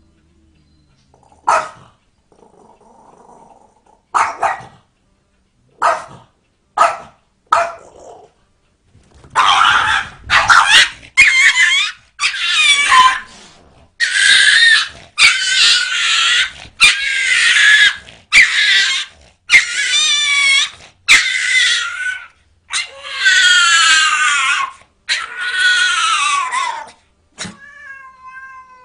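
Small dog barking in short, sharp barks a second or two apart, then from about nine seconds in a long run of loud, high yelping cries, each about a second long, one after another.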